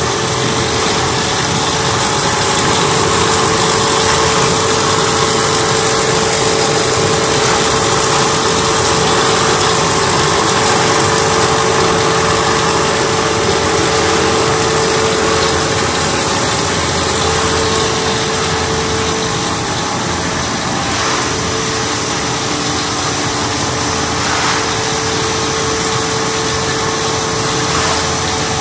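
1000mm stretch film extrusion line running: a loud, steady machine drone with a constant hum. The drone holds even throughout.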